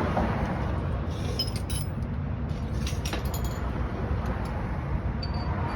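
Hand tools clinking lightly against metal a few times, over a steady low rumble.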